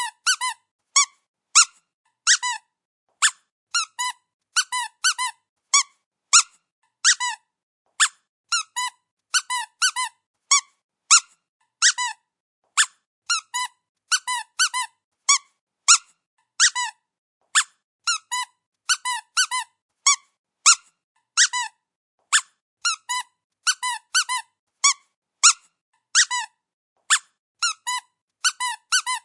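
Dog squeaky toy being squeezed over and over: short, high squeaks in an irregular rhythm, often two or three in quick succession.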